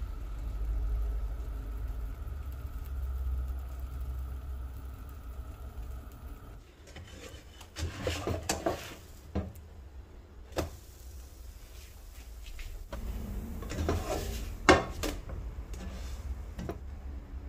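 A low steady hum that stops abruptly, then a series of clicks and knocks from a spatula against a nonstick frying pan while pancakes cook. The loudest knock comes near the end.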